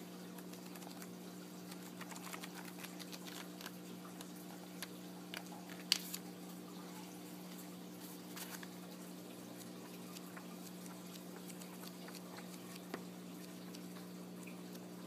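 Pages of a paper travel guide being handled and turned: soft rustles and small crackles of paper, with one sharper tick about six seconds in, over a steady low hum.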